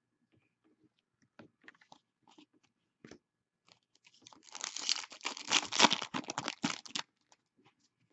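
Trading cards and their packaging handled: a few light clicks and rustles, then about two and a half seconds of loud crinkling and crackling from about halfway in.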